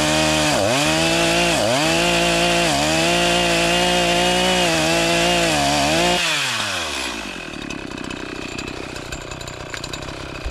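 Chainsaw cutting into a tree trunk at full throttle, its engine pitch dipping several times as the chain bites into the wood. About six seconds in the throttle is released and the engine winds down, leaving a quieter, noisy stretch.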